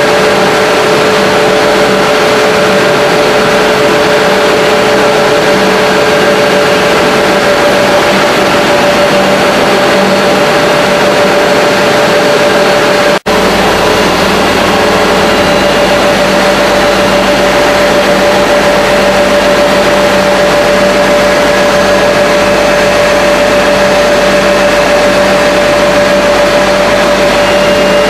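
Loud, steady drone of an HDPE pipe extrusion line running, with a steady whine over it. It breaks off for an instant about halfway through.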